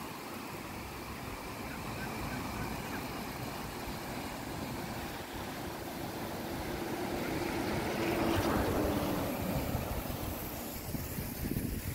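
Steady outdoor noise with a vehicle passing, swelling to its loudest about eight to nine seconds in and then fading.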